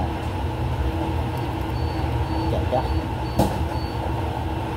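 Steady low mechanical rumble, with a single sharp knock about three and a half seconds in.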